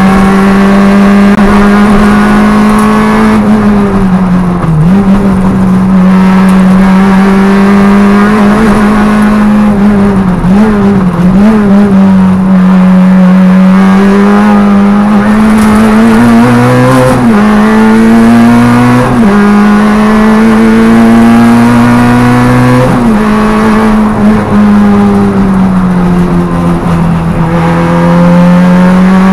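Peugeot 106 Rallye's engine, heard from inside the cabin, running hard at high revs on a rally stage. The pitch holds high, dips briefly a few times as the driver lifts and changes gear, then pulls up again.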